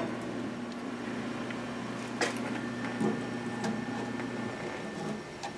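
Modified toaster oven used for solder reflow running with a steady electrical hum that stops about four and a half seconds in. A few light knocks come from the board being handled over it.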